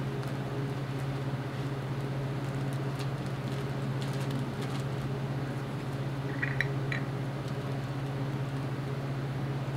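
A steady low hum of room noise, with faint crackles and clicks of a plastic zipper bag being handled and opened, a little louder about six and a half seconds in.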